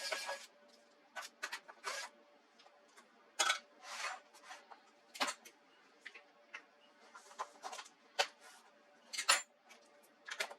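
Small hand tools and parts clicking and scraping irregularly against an HP laptop's plastic case as it is taken apart, with a faint steady hum underneath.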